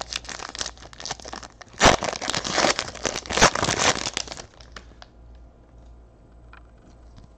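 Foil wrapper of a 2018 Panini Chronicles baseball card pack being torn open and crinkled: a dense crackle with its loudest tears about two and three and a half seconds in. It stops about four and a half seconds in, leaving only faint clicks as the cards are handled.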